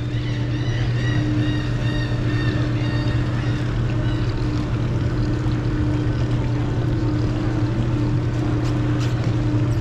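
A boat's engine running steadily at low speed, with a constant low hum, while the boat holds position over the fishing spot. A faint high whine sits over it for the first few seconds.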